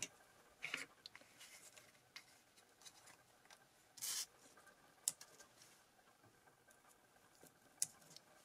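Paper being handled on a cutting mat: a few soft rustles and small clicks, with one short rustle about four seconds in.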